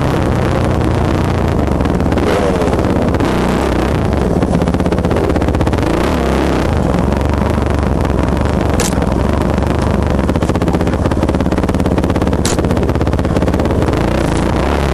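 Dirt bike engine of a 2007 Yamaha YZ450F, a four-stroke single, running close by with its pitch rising and falling as the throttle is worked over rough trail. Two sharp knocks cut in, about nine and twelve and a half seconds in.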